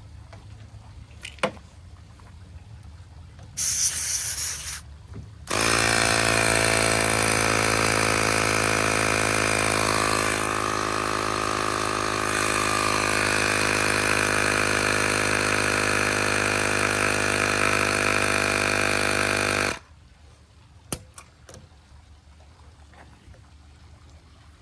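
Short hiss of air as an inflator chuck goes onto a tyre valve, then a tyre inflator's small compressor starts and runs steadily for about fourteen seconds, pumping up a pressure washer's flat tyre, and cuts off suddenly.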